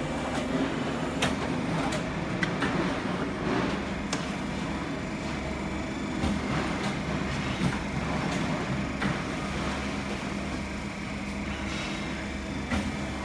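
Plane hydraulic embossing press running: its hydraulic pump motor gives a steady low hum with a faint high whine, and scattered clicks and knocks come through it.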